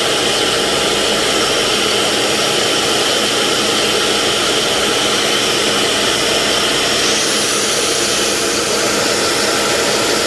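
Small lathe running steadily as a graphite tool is sanded on it, with an even whirring hiss. A higher hiss comes in about seven seconds in.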